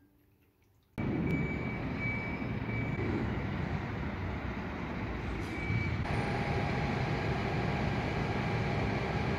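Outdoor city background noise: a steady low rumble of traffic that starts suddenly about a second in, after near silence, with a few short high chirps over it.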